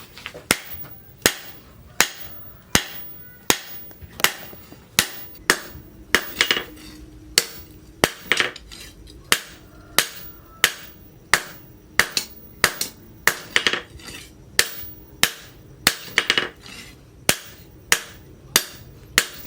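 Hand hammer striking hot leaf-spring steel on an anvil, a steady run of sharp blows with a brief metallic ring after each, about one and a half blows a second.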